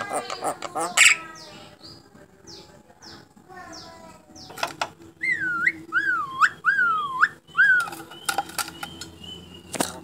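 Caged myna calling: chattering squeaks and clicks, then, about halfway through, a run of loud swooping whistles that dip and rise, and a sharp click near the end.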